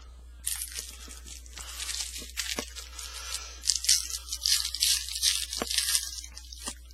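Foil wrapper of a Topps Chrome trading-card pack being torn open and crinkled in the hands: a dense crackling with a few sharp clicks.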